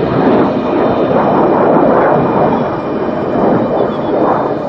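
MiG-17 jet fighter's turbojet engine in flight overhead as it climbs: a loud, steady rushing roar.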